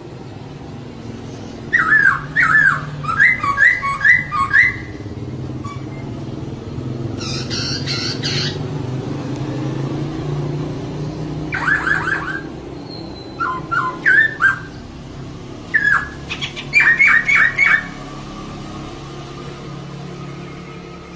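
Female poksay (laughingthrush) calling in about five bursts of quick, repeated sharp notes with pauses between, over a steady low rumble that swells in the middle.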